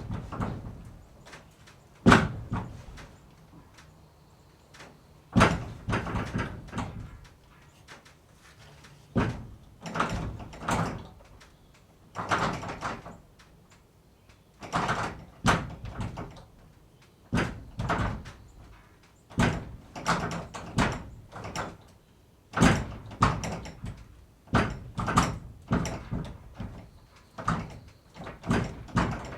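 Barn door being moved and shut again and again: short scraping and rattling movements, many ending in a sharp bang, repeated every second or two.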